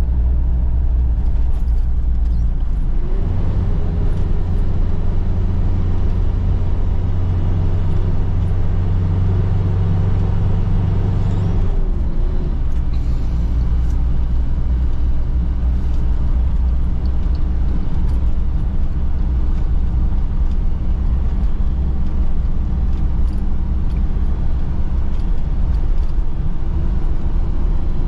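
Road vehicle driving along, a steady low engine and road rumble; the engine note climbs about three seconds in, holds, and falls away about twelve seconds in.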